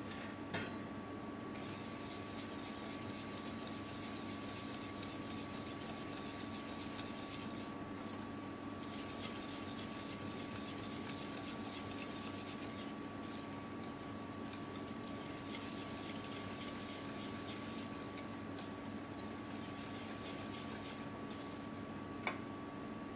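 Wire whisk stirring canelé batter in a stainless steel bowl, its wires rubbing and scraping against the metal in steady strokes with brighter scratchy spurts. A sharp tap sounds near the start and again near the end.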